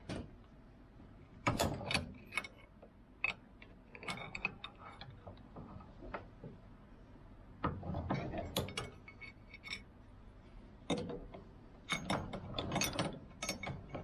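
Bent steel crate hammer clamped in a bench vise, clicking and clanking against the jaws as it is levered by hand to straighten it. The metallic clicks come in irregular clusters, the loudest near the start and in the last few seconds.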